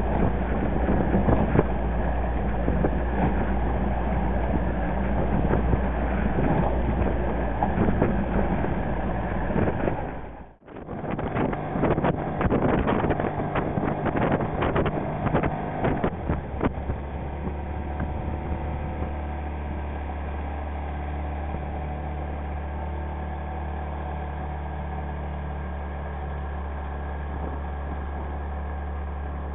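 A motorboat's engine running steadily, with wind buffeting the microphone and water splashing. The sound drops out for a moment about a third of the way through, then goes on, steadier and a little quieter over the second half.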